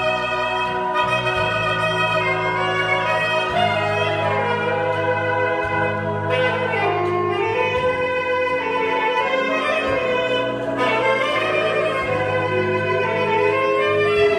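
Live instrumental music: a saxophone playing a slow, held melody over sustained low accompaniment, the melody dipping in pitch and rising back about seven seconds in.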